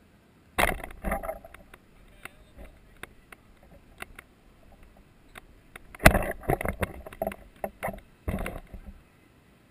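Handling noise from a small camera being picked up and moved: rubbing and knocks against its body, in two rough spells about half a second in and about six seconds in, with scattered clicks between.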